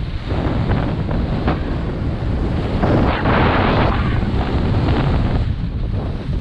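Wind buffeting the microphone while skiing downhill, with skis hissing and scraping over the snow; the scrape swells loudest about three seconds in, as in a turn.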